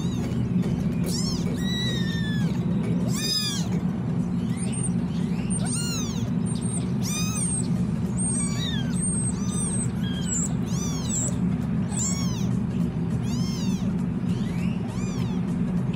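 Several young kittens meowing over and over, many short, thin, high cries that rise and fall, with a steady low hum underneath.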